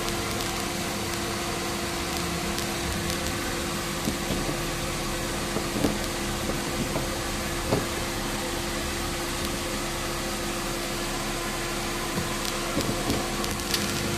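Vehicle heater blower fan running on high inside the cabin: a steady rushing hiss with a constant hum, and a few light clicks.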